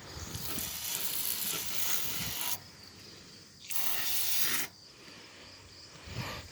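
Aerosol insect spray can being sprayed into a yellow jacket nest hole: one long hiss of about two and a half seconds, then after a short pause a second hiss of about a second.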